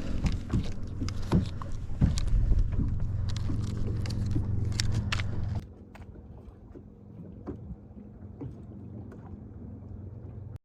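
Handling knocks and clicks on a fishing boat over a low steady hum, which drops away suddenly about five and a half seconds in, leaving quieter background with a few faint knocks.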